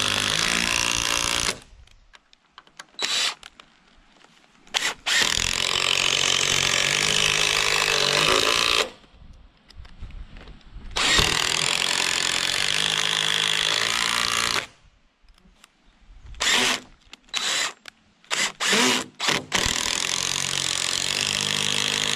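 DeWalt 20V cordless impact driver driving lag screws into timber framing, in several runs of a few seconds each with quiet pauses between. A string of short trigger bursts comes before the last run near the end.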